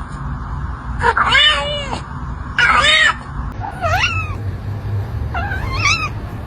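A domestic cat meowing four times, starting about a second in. Each call is under a second long and bends in pitch; the third one rises.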